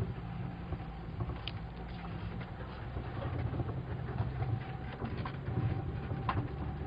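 Off-road 4x4's engine running at low revs as the vehicle crawls along a rough track, heard from inside the cab, with scattered knocks and rattles from the body and suspension.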